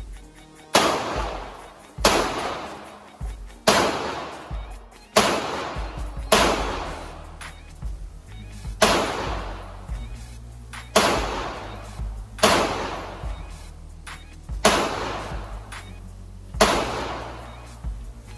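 Handgun shots fired one at a time at an indoor range, about a dozen over the span, roughly one every second and a half, each with a sharp crack and a reverberant tail.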